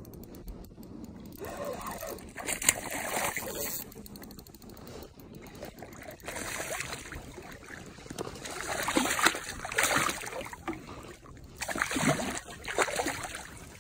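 Water splashing in several irregular bursts as a hooked smallmouth bass fights at the surface beside the boat.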